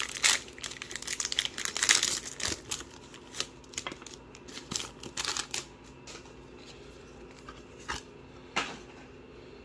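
Star Wars Destiny booster pack wrapper being torn open and crinkled, densest and loudest in the first two or three seconds. Then quieter rustling of the wrapper and cards, with a few light taps as a plastic die is set down on the wooden table.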